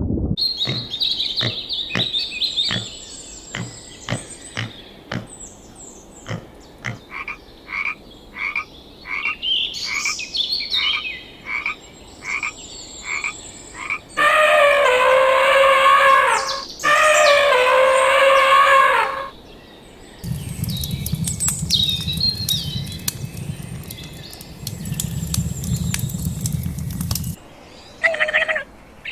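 Frogs croaking in a steady series of short, evenly spaced calls, about two a second. About halfway through come two long, loud, drawn-out animal calls, each a couple of seconds long. After them a low rumbling noise runs with faint chirps over it.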